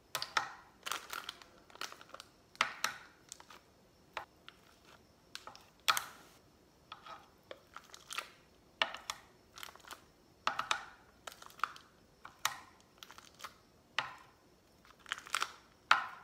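Plastic food pack crinkling as a knife scrapes and cuts dog food out of it, in short irregular scrapes and crackles about one or two a second.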